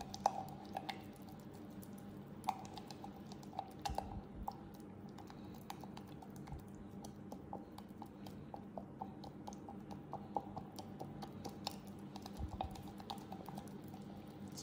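Spatula stirring and scraping thick, creamy shea butter blend against the sides of a glass beaker, making many small, irregular clicks and taps, over a faint steady hum.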